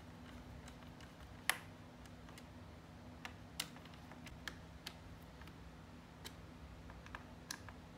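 Small screwdriver tightening the heatsink screws in a laptop: irregular light metallic clicks and ticks, the sharpest about one and a half seconds in, over a faint steady hum.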